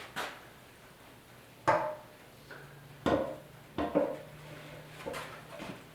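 Metal motorcycle fuel tank being handled and fitted onto the frame: about six light knocks and clunks with a short ringing after each, spread over several seconds.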